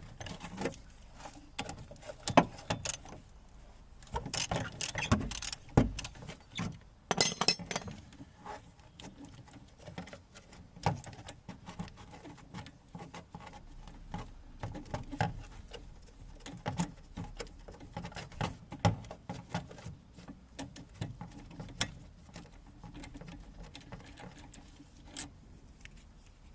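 Hand tools on car suspension: scattered metal clicks, clinks and knocks as a 12 mm bolt is worked loose, busiest in the first several seconds.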